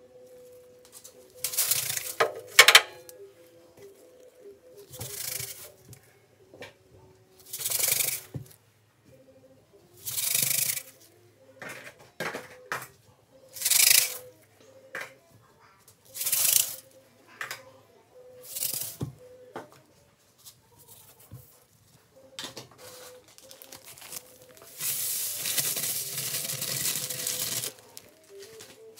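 Granular laundry powder poured into a washing machine drum: a series of short hissing pours, then a longer pour near the end.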